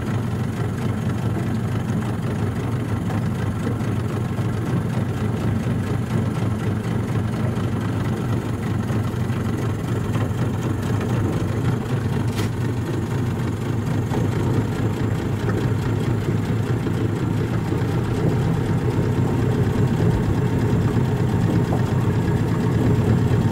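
Motorboat engine running steadily, a continuous low hum that grows slightly louder near the end.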